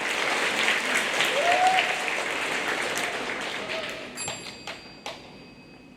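Audience applauding, full for the first few seconds and then dying away to a few scattered claps.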